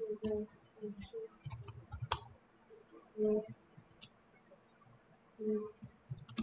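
Computer keyboard keys clicking irregularly as someone types, with a few short low hums in between.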